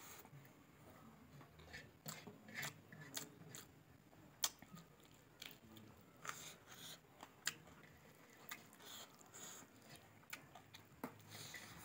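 A person eating rice by hand from a steel plate: faint chewing and mouth sounds with scattered small clicks and crunches, the sharpest about four and a half seconds in.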